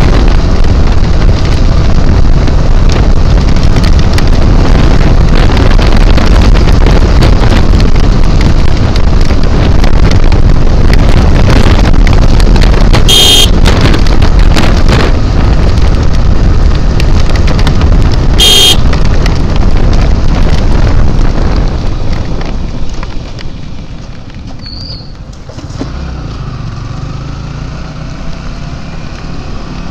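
Motorcycle ride at speed on a wet road: a loud, steady rush of wind over the microphone with the engine underneath, and two short, high horn beeps, one about halfway through and one a few seconds later. Near the end the rush drops away as the bike slows to town speed, leaving the quieter engine and road noise.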